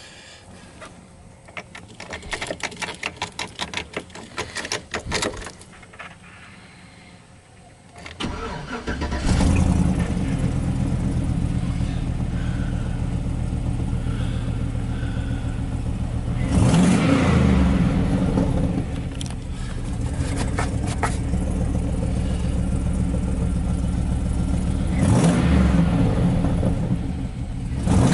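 A 2007 Chevrolet Silverado 1500's engine starting about eight seconds in, after a few seconds of rapid clicking, then idling steadily and revved briefly twice.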